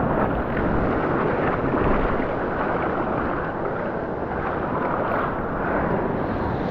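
Steady rushing noise of ocean surf and wind buffeting the microphone.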